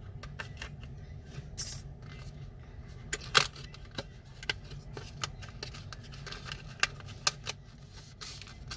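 Small metal repair tools and phone parts clicking and tapping against each other and a work surface: a dozen or so short, sharp clicks at uneven intervals, the loudest about three and a half seconds in, over a steady low hum.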